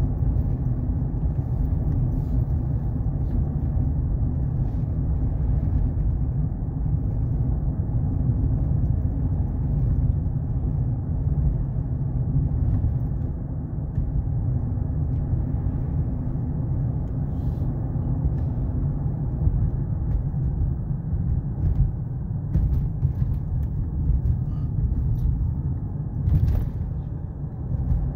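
Steady low road rumble heard from inside a moving car's cabin, with a few faint clicks near the end.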